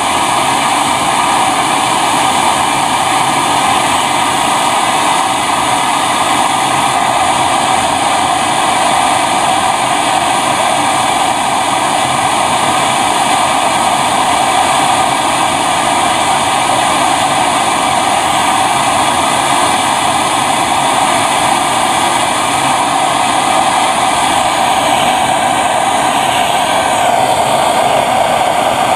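Portable gas torch flame burning with a steady, loud hiss while it heats a copper pipe joint to melt a copper-phosphorus brazing rod.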